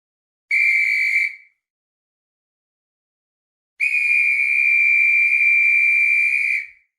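Two whistle blasts at one steady high pitch: a short blast of about a second, then a long blast of about three seconds.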